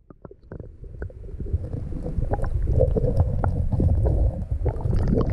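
Muffled rumbling and sloshing of water heard through a submerged camera's housing, building over the first two seconds and then staying loud, with scattered small clicks and knocks.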